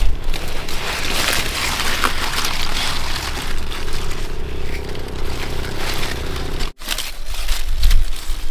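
Outdoor rustling and crackling among garden plants, over a low wind rumble on the microphone. The sound drops out abruptly for a moment near the end.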